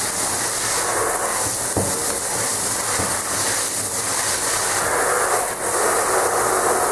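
Handheld shower spray running steadily onto a wet dog's coat and the bathtub floor, a steady hiss.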